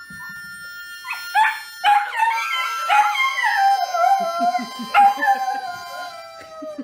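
A dog howling: long drawn-out howls that slide down slowly in pitch, starting about a second in.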